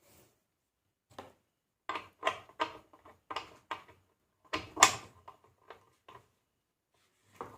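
A dozen or so short, irregular knocks and clatters, the loudest about five seconds in: hands handling the leads and connecting them to the two terminals of a homemade spot welder.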